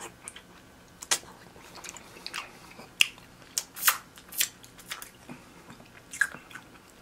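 Close-miked mukbang eating: biting and chewing seafood, with several sharp, short crunching snaps spread irregularly through the stretch.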